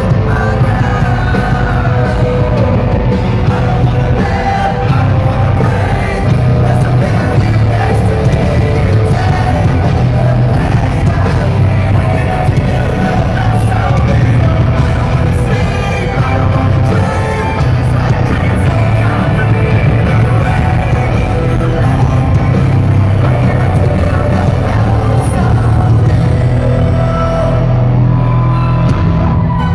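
Live hard rock band playing loudly, with electric guitars, bass guitar, drums and singing, heard from within the crowd in a large hall.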